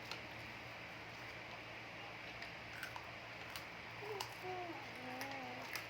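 Faint, scattered clicks and crackles of crunchy cheese snacks being handled and chewed, over a steady low room hum, with a faint voice briefly near the end.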